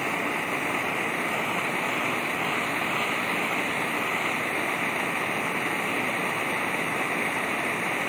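Handheld propane torch burning with a steady hiss, its flame played on the copper base of a computer heatsink to heat it.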